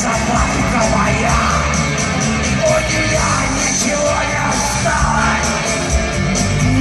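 Live brass-band music with a tuba and a trombone playing, amplified through a concert hall's sound system.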